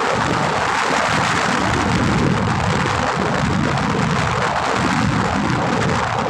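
Wind rushing over the microphone of a handlebar-mounted phone on a fast-moving road bike, a loud steady roar with tyre noise from the asphalt mixed in.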